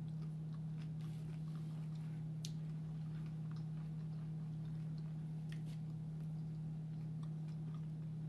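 A person chewing a seafood egg roll, with scattered soft mouth clicks, over a steady low hum.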